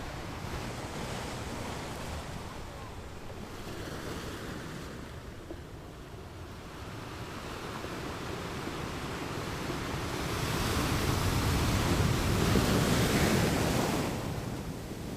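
Rough sea waves rushing and breaking, with wind buffeting the microphone. The rush swells loudest about ten seconds in, then eases near the end.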